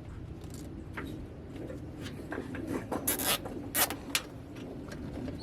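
Wiring harness and plastic being handled and pushed into place: scattered rubbing and scraping, with a few short, sharper scrapes about three to four seconds in, over a steady low hum.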